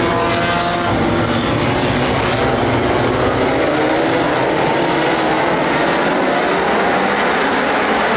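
A pack of dirt-track race cars running together: a loud, steady drone of many engines at once, their pitches shifting and overlapping.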